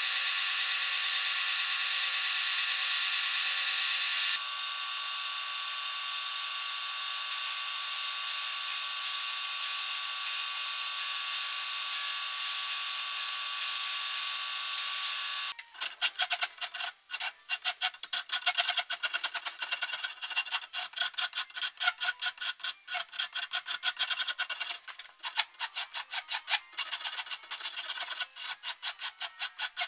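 A milling machine's end mill runs steadily, cutting into an English walnut gunstock. About halfway through it gives way to a hand file rasping across the walnut in quick, rhythmic strokes, several a second, with a few brief pauses.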